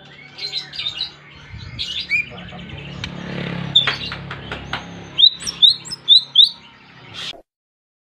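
White-rumped shama singing hard: varied whistled phrases and chirps, then a run of five quick, repeated, swooping notes. In the middle there is a spell of hiss with a few sharp clicks, and the sound cuts off suddenly about seven and a half seconds in.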